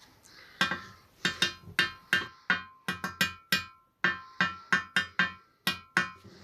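Rapid metallic clinks, about twenty in two runs with a short gap partway through, each with a brief ring at the same pitch: steel main bearing shells being handled and pressed into the aluminium lower crankcase half of a ZZR motorcycle engine.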